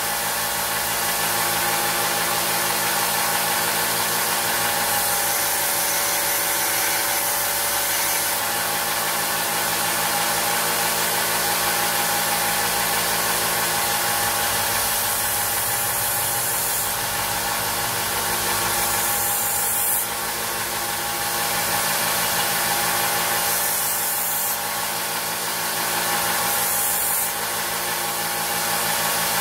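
Belt sander running steadily while the rust-pitted blade of an old pocket knife is sanded on the belt, a continuous motor hum under the rasp of the belt, dipping briefly three times in the second half.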